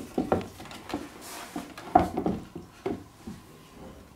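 Handling noise from a wooden chair frame and plywood seat base being moved on cardboard: a series of light wooden knocks and rubs, the sharpest about two seconds in.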